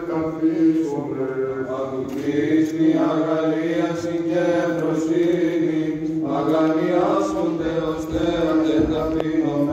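Religious chant laid over the pictures: voices sing a slow, drawn-out melody above a steady held low drone note, in the style of Greek Orthodox Byzantine chant.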